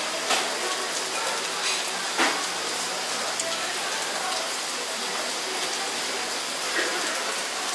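Heavy tropical rain falling steadily: an even hiss, with a few sharper knocks standing out.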